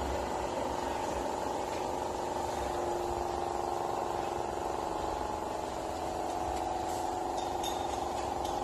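An engine idling steadily: a constant, even drone over a low rumble, with a few faint ticks near the end.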